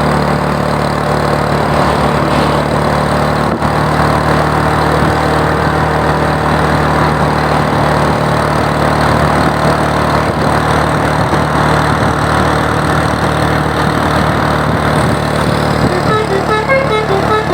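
Steady engine hum and road noise from vehicles on the move. About sixteen seconds in, a bus's telolet basuri horn starts playing a quick tune of rapidly alternating notes.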